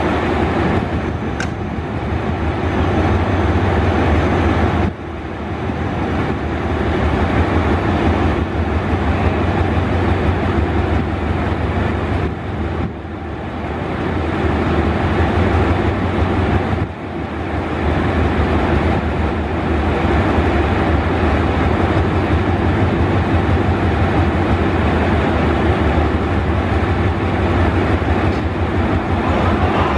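Alsthom diesel-electric locomotive standing with its diesel engine idling, a steady, loud, low-pitched running sound.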